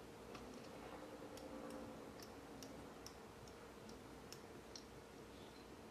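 Faint, irregular small clicks and ticks of a small screwdriver turning a tiny screw into a plastic RC kit part.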